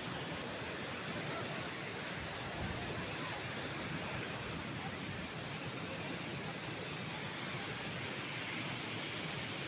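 Sea surf washing steadily on the shore, an even, unbroken rush.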